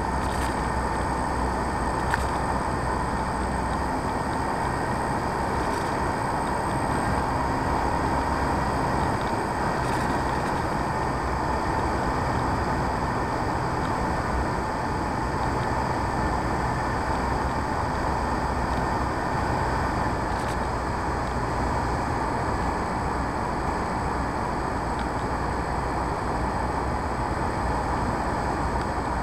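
Radio-controlled P-51D Mustang model plane in flight, its motor and propeller running at a steady pitch with a constant rush of air over the plane, picked up by the camera on board.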